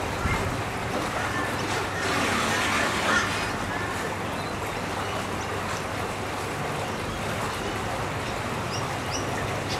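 Steady outdoor background noise with a few faint, short, high bird chirps; the sound swells a little for about a second and a half some two seconds in.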